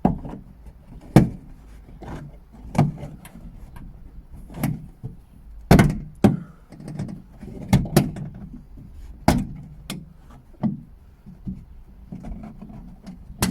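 Plastic trim panel on a 2017 Skoda Octavia being pulled and pushed free by hand, its retaining clips popping out in a string of sharp, irregular clicks and knocks with some plastic rubbing between them.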